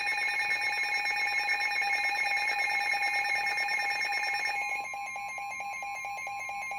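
NOAA Weather Radio alert tone: a steady electronic alarm with a fast even pulse, signalling that a new severe thunderstorm warning is about to be read. About two-thirds of the way through the tone thins and drops a little in level.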